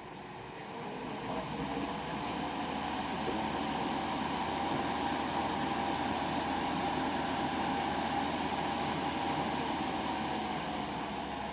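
The powerful 12 V fan of a DIY fume extractor, drawing air through a HEPA filter, speeds up over the first two seconds, then runs steadily. A rush of air carries a faint whine.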